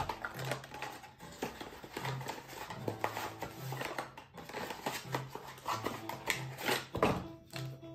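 Background music with a steady bass beat, over the rustling and clicking of a cardboard mystery box and its packaging being handled.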